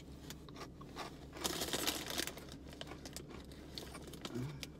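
A snack bag crinkling for about a second, starting about a second and a half in, among faint clicks of handling and eating.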